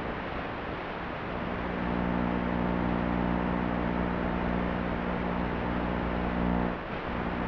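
FPV racing quadcopter's motors and propellers humming at a steady pitch under a constant hiss of radio static. The hum comes in about a second and a half in and cuts off sharply near the end.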